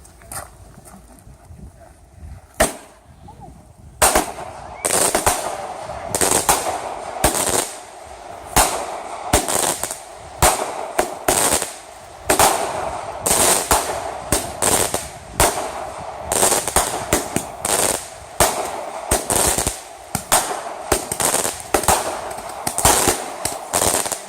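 Consumer fireworks going off: a single bang about two and a half seconds in, then from about four seconds a rapid string of sharp bangs, one or two a second, with crackling between them.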